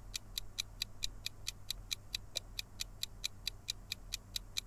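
Countdown-timer ticking sound effect: fast, even clock-like ticks, about five a second, marking the time left to answer a quiz question.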